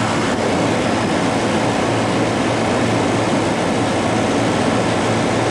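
Walk-in freezer's refrigeration condensing unit running: a steady mechanical hum with fan noise.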